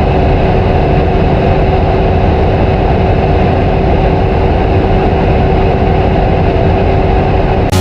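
Supercar running hard at a steady engine speed, a loud, even drone with one constant tone through it and no revving up or down. It cuts off suddenly near the end.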